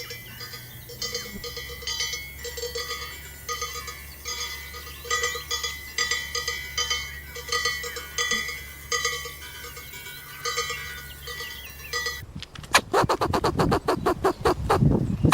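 Bells on livestock clanking irregularly, short metallic rings about once or twice a second. Near the end a louder, rapid run of sharp pulses, many a second, cuts in and replaces them.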